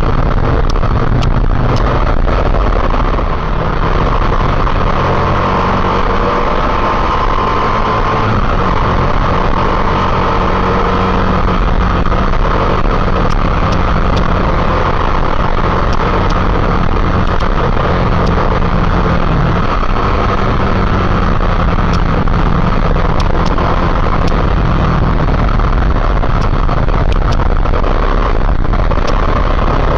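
Motorcycle engine running steadily under way, mixed with a continuous rush of road noise.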